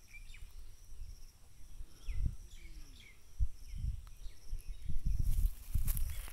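Rural outdoor ambience: a steady high insect drone and a few short chirps, over irregular low bumps and rustling from the phone being handled close to the microphone.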